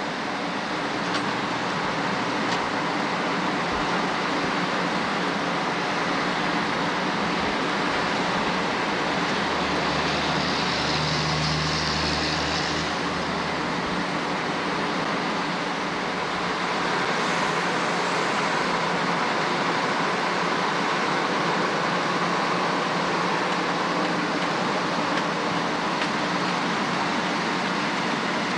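Amtrak stainless-steel passenger cars passing close by at speed: steady wheel-on-rail rumble and rush of the train going by.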